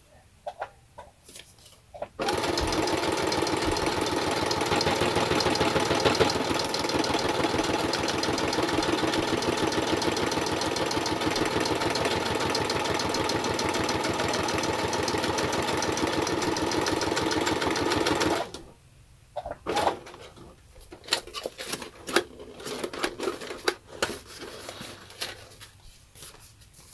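Brother XR3340 computerized sewing machine stitching along the edge of paper-bag journal pages. It starts about two seconds in, runs steadily with rapid needle strokes for about sixteen seconds, then stops suddenly. Scattered clicks and handling noises follow as the journal is moved.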